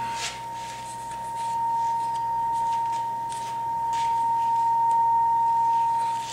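A steady, unwavering high-pitched tone, like an electronic whine or test tone, held without a break, with faint short hisses over it.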